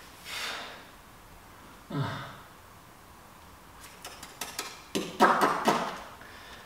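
A man's hard, breathy exhales while straining through a bodyweight exercise: one about half a second in and another at about two seconds. These are followed by mouth clicks and a short strained vocal sound near the end.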